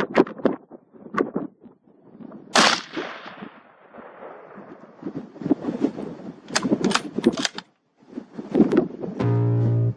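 Rifle shot about 2.6 s in with a rolling echo that fades over a second or two, among several other sharp cracks and knocks. A deep steady bass note starts near the end.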